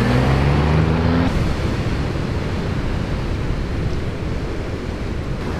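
A low, steady engine-like hum cuts off abruptly a little over a second in. It gives way to a steady rush of wind and ocean surf.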